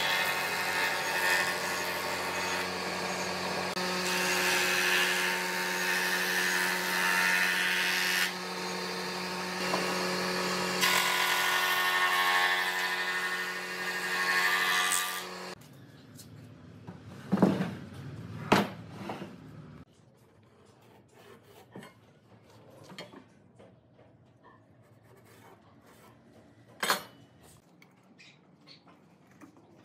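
Surface jointer running with a steady hum and planing a wooden board as it is pushed over the cutterhead, the cutting noise swelling in repeated passes; it stops abruptly about halfway through. After that, a few scattered knocks and clicks of wood and tools being handled.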